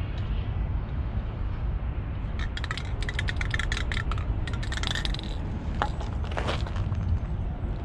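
Rust-Oleum aerosol spray paint can being shaken, its mixing ball rattling in a quick run of clicks for about three seconds, then a couple more short rattles near the end, over a steady low rumble.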